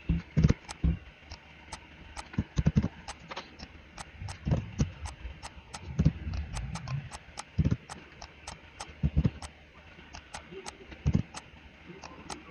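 Computer keyboard keystrokes and mouse clicks while typing in short numeric text labels: irregular sharp clacks in short runs, some with a dull low thud.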